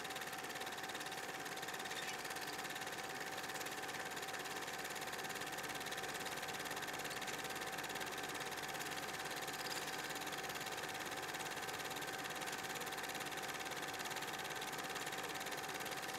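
A steady, unchanging hum with a hiss over it and a faint steady whine.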